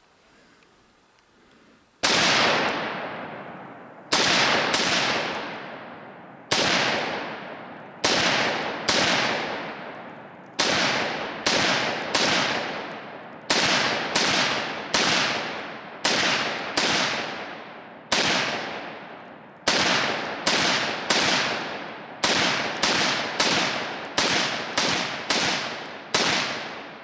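.300 Blackout AR pistol with a VG6 Gamma muzzle brake fired shot after shot, about thirty rounds at an uneven pace of one or two a second, each report echoing away. The shooting starts about two seconds in.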